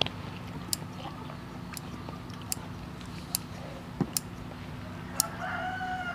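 A rooster crowing in the background for over a second near the end, one long, level call. Before it, a string of sharp, separate clicks as scissors snip sausage in a bowl and utensils knock against the bowls.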